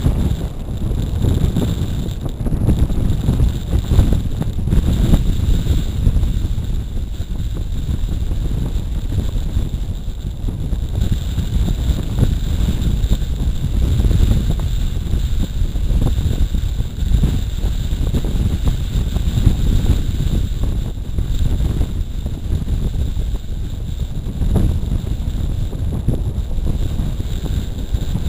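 Strong gusty wind buffeting the microphone: a loud low rumble that swells and eases with the gusts.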